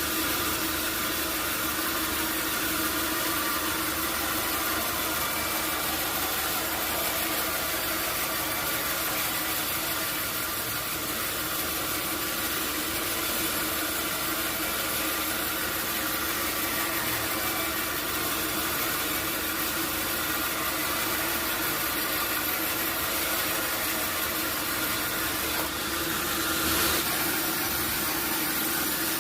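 Sawmill machinery running steadily, an even mechanical hum with a constant tone, swelling briefly near the end.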